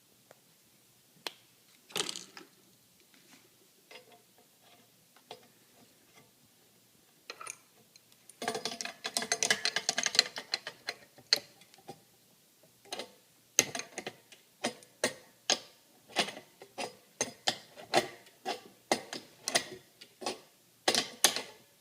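Hand work on small air-line fittings being threaded together: a few scattered clicks, a dense patch of crackling about eight to eleven seconds in, then a steady run of sharp clicks a little over one a second.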